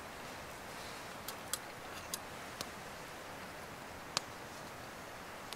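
Wood fire burning in a small box stove, crackling with a handful of sharp, irregular pops, the loudest about four seconds in.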